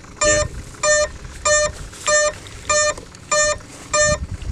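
Electronic speed controller of a large RC plane beeping through its brushless motor: a short, identical beep repeated about every 0.6 s, eight times, with a faint low rumble under it.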